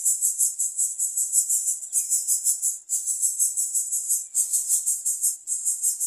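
Loud, high-pitched insect song, a rapid pulsing buzz at about four to five pulses a second, broken by a few short pauses.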